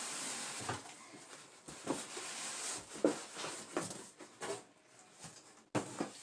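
Cardboard box and packaging being handled while unboxing: a steady hiss fades out in the first second, then comes a scattered series of short knocks and rustles about once a second.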